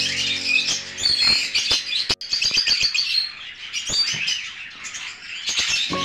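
A colony of lovebirds chirping, many quick high chirps overlapping. Background music fades out in the first second, and the sound cuts out for an instant about two seconds in.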